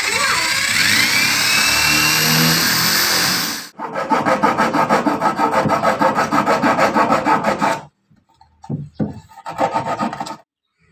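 An electric drill bores into a plywood panel for about the first three and a half seconds, its whine sliding up in pitch. Then a hand-held hacksaw blade saws through the plywood in quick, even strokes to cut out a small rectangular opening, stopping and resuming briefly near the end.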